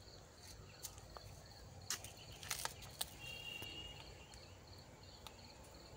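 Quiet outdoor ambience with an insect chirping faintly and steadily, about three chirps a second. A few faint snaps and rustles come from hands plucking mustard flower heads off the plants, the clearest of them in the middle.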